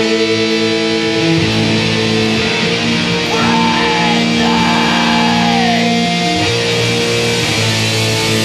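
Loud post-hardcore/post-rock guitar music: layered electric guitars holding sustained chords, with notes that bend up and down over them, and no drums.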